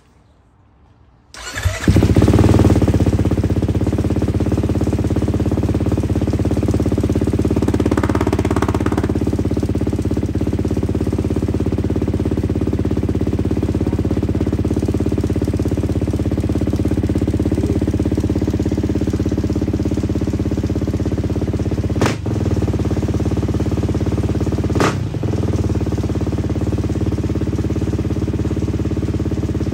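Beta 500 RR-S dirt bike's single-cylinder four-stroke engine, freshly fitted with an FMF exhaust, starting about a second and a half in and then idling steadily. The running dips briefly twice near the end.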